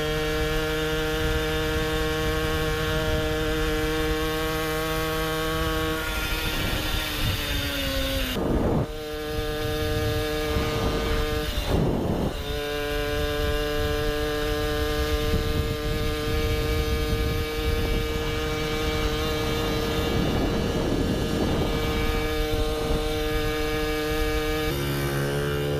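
Single-cylinder two-stroke engine of a Puch Maxi moped with an expansion-chamber pipe, running at steady high revs while being ridden. About six seconds in the engine note falls as it slows, with two brief noisy rushes a few seconds apart, then it holds steady again, and near the end the pitch drops suddenly.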